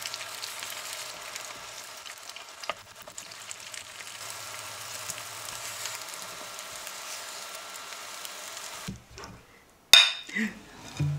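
Eggs frying in a small non-stick pan: a steady sizzle with a faint tap of the spatula early on. It cuts off about nine seconds in, and a second later comes a single sharp clink as two ceramic bowls are tapped together.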